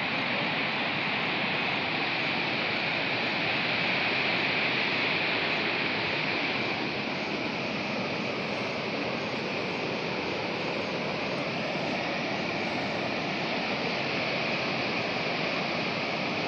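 Steady, even rushing of the Barehipani waterfall, a tall multi-strand fall, as a constant hiss.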